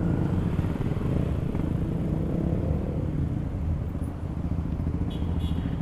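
Honda Supra X 125's single-cylinder four-stroke engine running steadily while riding, its rapid firing pulses heard up close.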